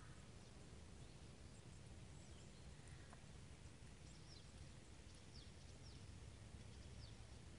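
Near silence: faint outdoor ambience with a low rumble, and a few faint, high, quick chirps from distant small birds in the second half.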